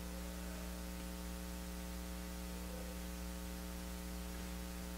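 Steady electrical mains hum, a low buzz with a stack of overtones, over a faint hiss, unchanging throughout.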